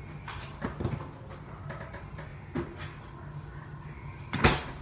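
Off-camera kitchen handling sounds: a few short knocks and clatters, the loudest a sharp knock near the end, over a steady low hum.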